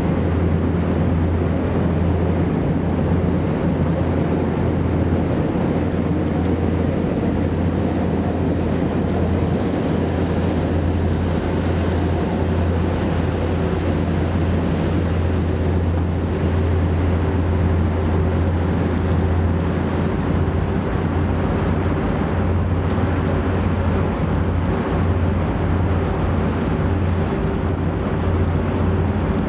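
Boat engine running at a steady pace, a constant low drone heard from on board, with the rush of water and air around it.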